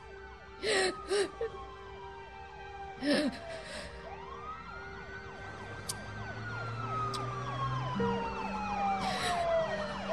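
A wailing siren rising and falling slowly in long sweeps, with a woman's sharp sobbing breaths breaking in a few times near the start and once near the end.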